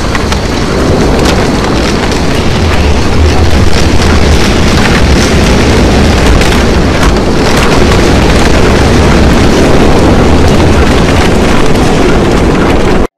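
Storm sound effect: a loud, steady rush of wind and rain over a deep rumble, with scattered crackles, that cuts off suddenly near the end.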